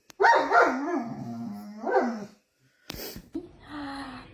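Dog vocalizing in a wavering, rising-and-falling grumbling whine for about two seconds, a dog's 'talking' reaction. A sharp click follows, then a faint steady hum near the end.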